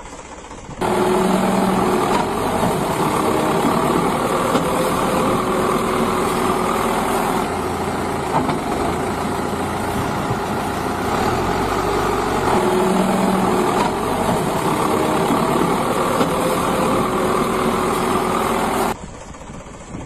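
A heavy vehicle's engine running steadily as a cartoon sound effect. It starts abruptly about a second in and cuts off abruptly near the end, and its pattern repeats as a loop.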